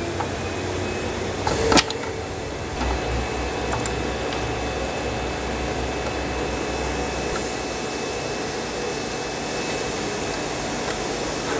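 Steady whirring machine noise with a low hum underneath, and one sharp click about two seconds in.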